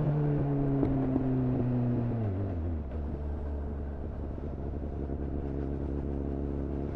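2001 Suzuki GSF 600 Bandit's 600 cc inline-four through a GPR Furore Nero exhaust, revs falling on a closed throttle with a few pops in the exhaust, then settling to a steady idle about three seconds in.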